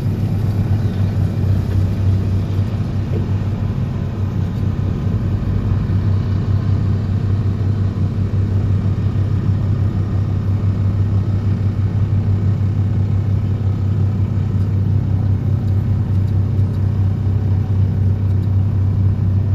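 DPD350T excavator-mounted vibro hammer running at full vibration while driving a steel sheet pile: a loud, steady, even hum.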